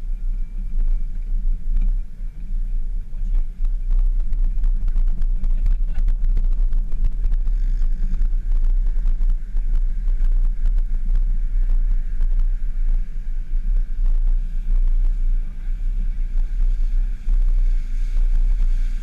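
Open-top Jeep Wrangler JK driving over sand and into shallow water: a steady, loud low rumble of engine and wind on the roll-bar-mounted action camera's microphone, with frequent short knocks and jolts.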